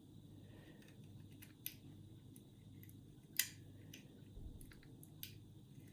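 Faint, scattered metallic clicks of homemade picks and a tension tool working the levers of an ERA five-lever curtain-sided mortice lock, the sharpest click about three and a half seconds in.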